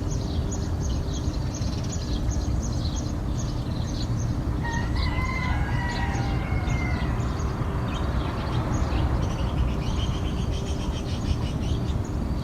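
A rooster crows once, a long call lasting about two and a half seconds starting near the middle, over continuous chirping of small birds. A steady low rumble runs underneath.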